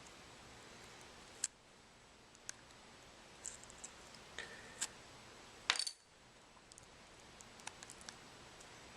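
Scattered small clicks and ticks of cracked phone screen glass being pried off a Samsung Galaxy S3 with a razor blade, with one louder, brief crackle about two-thirds of the way through.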